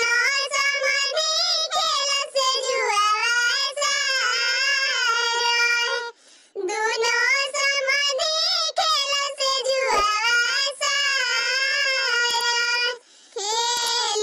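A high, pitch-shifted cartoon-cat voice singing a Bhojpuri kanyadaan wedding folk song in drawn-out phrases. It breaks off briefly about six seconds in and again near the end.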